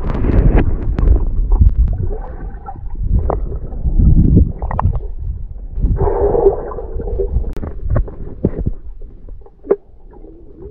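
Underwater sound from a submerged camera: muffled low rumbling of moving water with scattered knocks and a gurgle about six seconds in, growing softer near the end.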